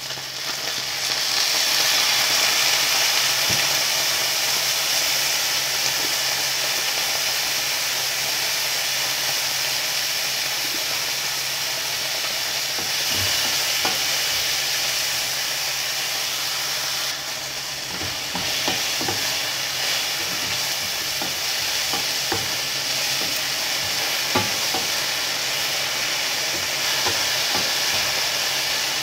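Eggplant and peppers sizzling in a hot wok, the sizzle getting louder about a second in as oyster sauce is poured in. A wooden spatula stirs and scrapes through the vegetables, with scattered knocks against the pan in the second half.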